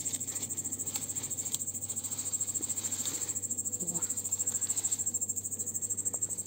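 Crickets chirping steadily in a fast, even pulsing rhythm.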